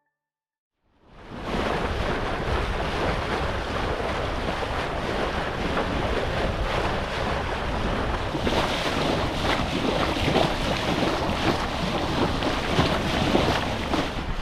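Wind rumbling on the microphone over the rush of waves and water around a sailboat under way. The sound fades in about a second in and then holds steady.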